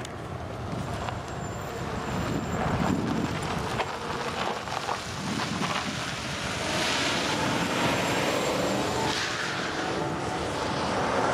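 A pickup truck drives past on the road, its tyre and engine noise swelling about two thirds of the way in and then easing, over a steady low rumble of wind and traffic.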